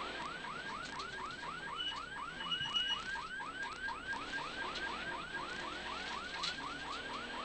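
Electronic warning siren on a rally zero car, a fast yelp of rising sweeps repeating about four to five times a second, clearing the stage ahead of the first competitor. Two short high beeps sound near the middle, over a faint engine hum.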